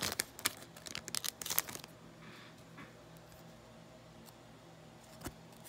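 Trading card pack wrapper crackling as it is torn open and pulled away, a run of sharp crinkles over about the first two seconds. Then it goes quiet apart from a single small click a little after five seconds.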